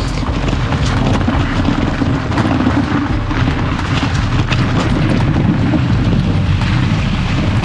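Wind buffeting the microphone of a handlebar-mounted GoPro on a moving mountain bike, a loud steady rumble. Frequent small clicks and rattles from the bike and the loose clamp mount run through it as the bike rolls over the trail.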